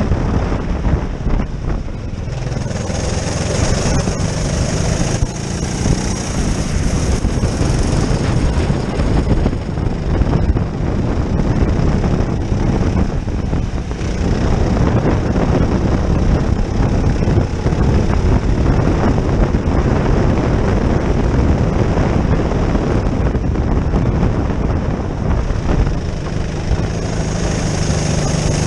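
Go-kart engine running hard at racing speed, heard from onboard the kart, its note holding steady through the lap.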